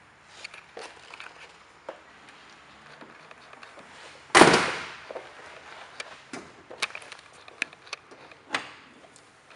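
A 1972 Chevrolet Corvette's door shut with one solid thump about four seconds in. Lighter clicks and knocks come before and after it.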